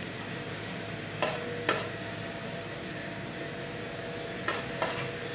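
Grated coconut being spooned into a metal bundt tin: four light taps of the spoon on the tin, a pair about a second in and another pair near the end, over a steady hiss.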